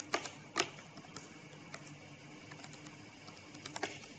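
Typing on a computer keyboard: irregular key clicks, with two louder clacks about half a second apart near the start and a quick run of keystrokes near the end.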